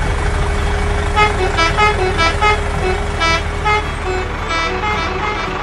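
A vehicle engine running steadily while a horn sounds a quick run of about a dozen short toots at changing pitches, like a little tune.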